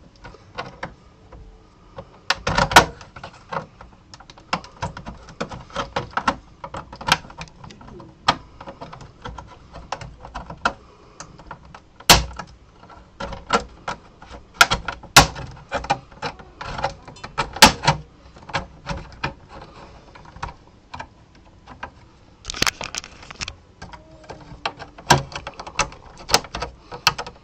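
Plastic snap-fit clips of an AOC i2369vm monitor's back casing clicking and snapping as the case is pried open with spudgers. The clicks come at irregular intervals, with a few louder snaps among them.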